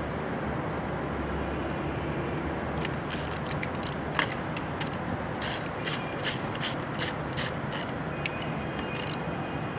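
Ratchet wrench clicking as bolts are run in and snugged temporarily, a series of sharp clicks starting about three seconds in, most regular near the middle, over a steady workshop hum.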